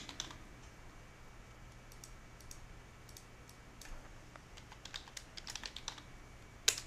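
Faint typing on a computer keyboard: scattered single keystrokes at first, then a quicker run of keys about five seconds in, with a sharper click near the end.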